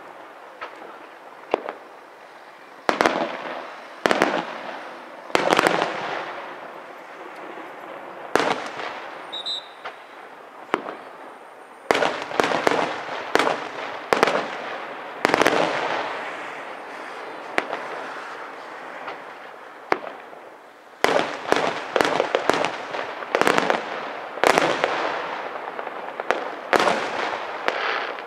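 Aerial firework shells bursting: a string of sharp bangs, each trailing off in an echo. They come in quick clusters about halfway through and again near the end.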